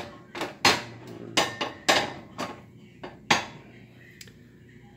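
Cast iron skillet clanking against the gas stove's iron grate as it is handled, about seven sharp knocks over the first three and a half seconds.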